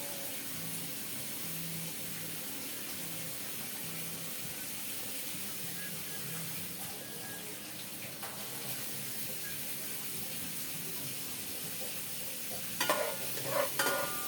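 Onions frying in hot oil in a pan, a steady sizzle. Near the end a utensil starts stirring and scraping in the pan, adding irregular clatter over the sizzle.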